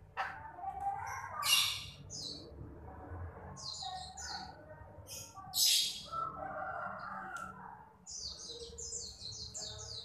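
Young Nias hill myna chick calling as it is hand-fed. Two loud, short, rasping calls come about one and a half and six seconds in, softer calls fall between them, and a quick run of repeated chirps comes near the end.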